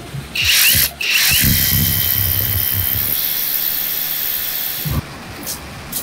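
Cordless rotary hammer drill boring into rock: a short burst, then a steady run of about four seconds with a high motor whine, stopping about five seconds in. It is drilling the hole for an expansion bolt.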